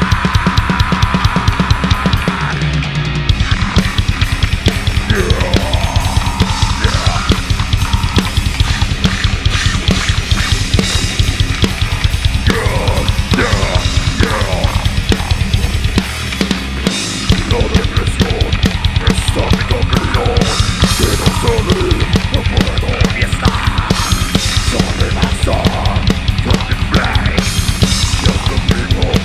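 Metal band playing live: very fast, dense drumming on bass drum, snare and cymbals under loud distorted guitars, with sliding high notes over the top.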